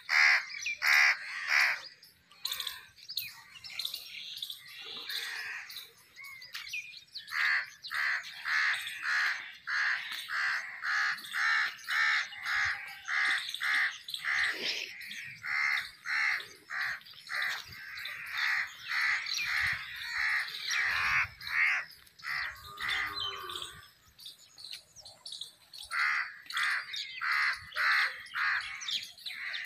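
A group of house crows cawing, one short call after another at about two a second, with quieter gaps about a quarter of the way in and again near the end.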